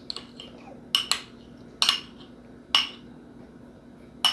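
A spoon tapping and clinking against a bowl, four sharp taps about a second apart, each ringing briefly.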